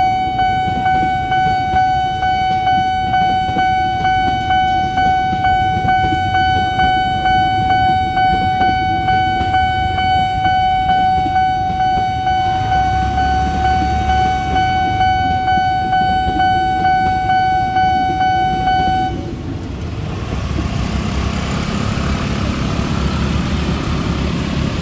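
Railway level-crossing warning alarm sounding a steady, quickly pulsing electronic tone at a fast tempo while an electric commuter train rumbles past. The alarm cuts off abruptly about 19 seconds in, leaving the rumble of motorbikes and traffic as the crossing reopens.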